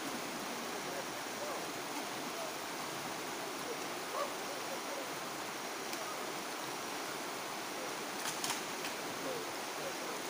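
Steady rushing of a fast-flowing river. A couple of faint clicks come about eight seconds in.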